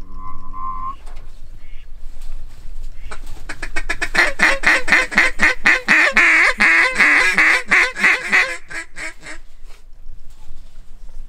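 Duck quacking: one drawn-out note near the start, then a long, rapid run of quacks, about five a second, that swells in the middle and stops a little before the end.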